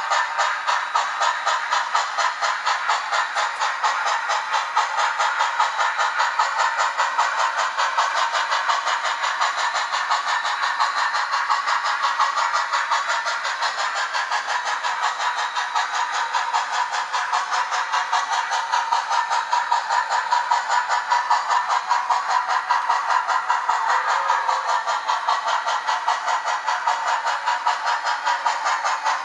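Blackstone model steam locomotive's sound decoder chuffing steadily through its small onboard speaker, a quick, even run of exhaust beats, several a second, with no bass.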